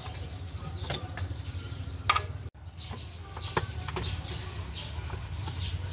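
Scattered metallic clicks and knocks of hand tools working bolts on a car engine, the loudest a little after two seconds in, over a steady low hum. The sound cuts out for a moment about two and a half seconds in.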